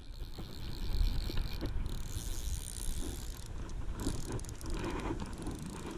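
Fly reel's click-pawl drag ratcheting in fast, continuous clicks while a hooked fish is played on the rod, over rumbling handling noise from the rod-mounted camera.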